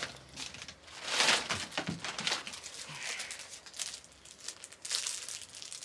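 Plastic shipping bag and small plastic packaging crinkling and rustling in irregular bursts as a hand rummages inside and pulls out a small wrapped item, loudest about a second in.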